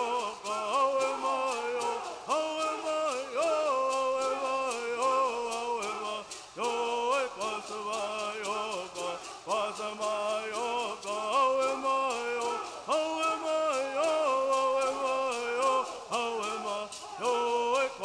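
Bird song of the Southern California tribes: a group of men sings a repeating chanted melody in unison, keeping time with gourd rattles shaken in a steady beat.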